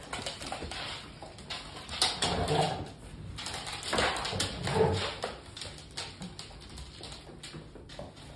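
Pit bull and puppies making play vocalizations in two louder bursts, about two seconds in and again around four to five seconds, with short clicks of claws and paws on a hard floor throughout.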